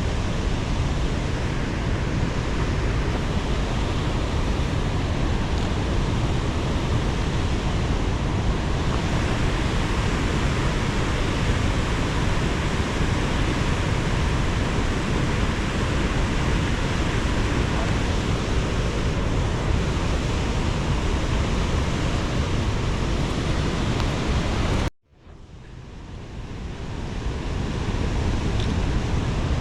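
Steady rushing of water released below a dam. About 25 s in it cuts out abruptly, then fades back up over a couple of seconds.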